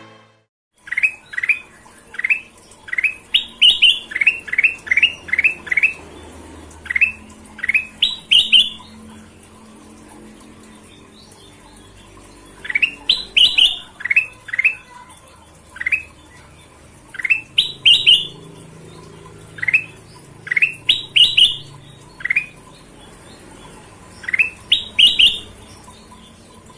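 Kutilang emas, a bulbul, singing: phrases of quick rising whistled notes, several to a phrase, repeated with short pauses between.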